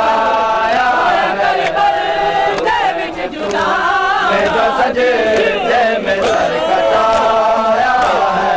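Group of men chanting a nauha, a Shia Muharram mourning lament, in unison, their melody rising and falling without pause.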